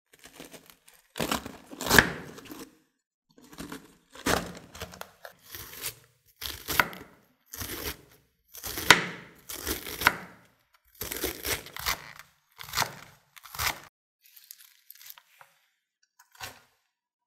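Chef's knife slicing through a head of raw cabbage on a wooden cutting board: runs of crisp crunching strokes as the blade shreds the leaves, with short pauses between runs. Near the end there is a fainter rustle and a light tap as the shredded cabbage drops into a pot.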